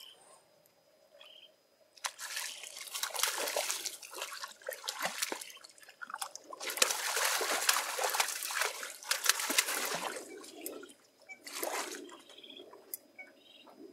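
Hooked fish thrashing and splashing at the water's surface beside the boat, in bursts: one from about two seconds in, a longer run in the middle, and a short splash near the end.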